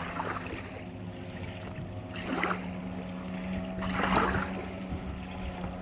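Jet ski engine running with a steady hum, with two brief swells of rushing water or wind noise about two and four seconds in.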